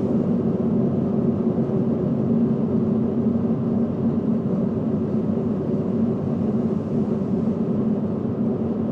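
Dense, steady whirring of 216 small DC motors running together, driving cotton balls against cardboard.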